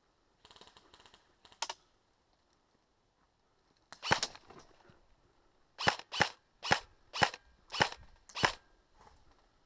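Airsoft guns firing single shots, each a sharp crack: one shot, a louder one a couple of seconds later, then a run of six about two a second.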